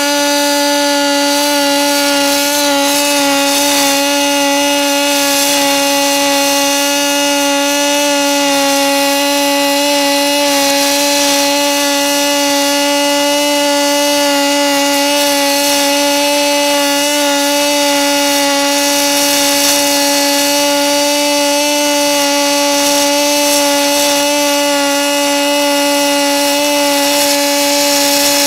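HTP Pro Pulse 200 running pulsed MIG on aluminum with .035 in 4043 wire in synergic mode, holding one continuous bead. The arc's pulsing gives a steady, loud pitched buzz with a crackling hiss over it.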